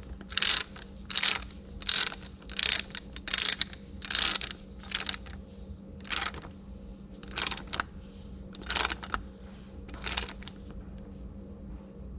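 Ratchet wrench with a digital torque adapter clicking in short bursts, about a dozen at uneven intervals, as it is swung back and forth to snug a connecting-rod cap bolt down for a Plastigauge bearing-clearance check. The clicking stops about ten and a half seconds in.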